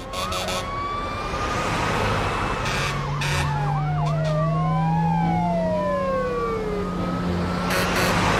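Fire truck siren wailing, its pitch gliding up and down, over a steady low engine hum.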